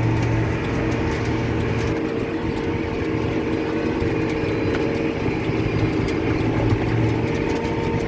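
John Deere tractor engine running steadily under load while pulling a Krone 1290 large square baler through the field, heard from inside the cab.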